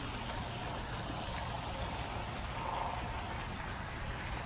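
Steady wind buffeting the microphone, a low rumble under an even outdoor hiss.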